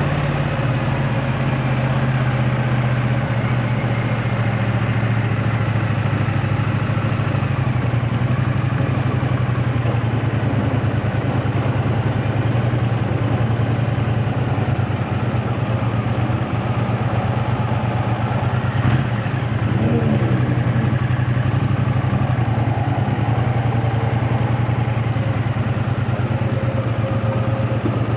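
2024 Triumph Bonneville T100's 900 cc parallel-twin engine running steadily while ridden, with a brief rise in pitch about two-thirds of the way through.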